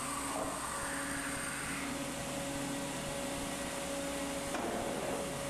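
Steady hydraulic hum from a Boeing 777 nose gear actuation test rig as the nose landing gear door actuator drives the forward door, with a sharp click near the end.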